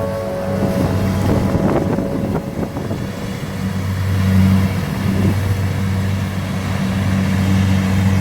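An engine running steadily, with a low, even hum.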